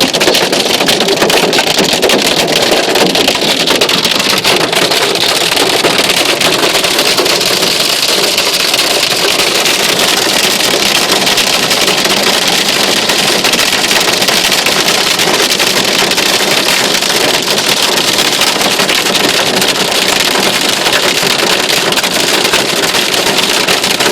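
Hailstorm pelting down: a loud, steady, dense patter of countless small hailstones and raindrops striking a surface.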